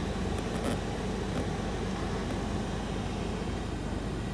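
A 2014 Cadillac ATS's HVAC blower fan running with a steady rushing noise and a low hum, as the air is switched to the floor setting. A few faint clicks come in the first second and a half.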